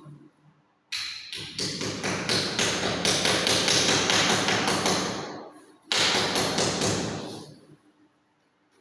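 Rapid hammer taps driving a plastic wall plug into a drilled hole in the wall, several knocks a second in two runs, the second shorter.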